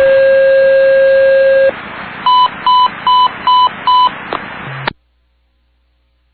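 Fire department dispatch alert tones heard over a radio scanner: one long steady tone of nearly two seconds, then five short, higher beeps about half a second apart, over radio hiss. The transmission cuts off about five seconds in.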